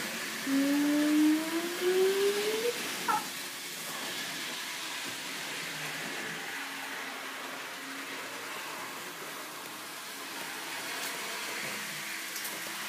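Small electric motor of an N-scale model train running on the track. Its pitch rises for about two seconds soon after the start as the train speeds up, then it settles into a steady hum.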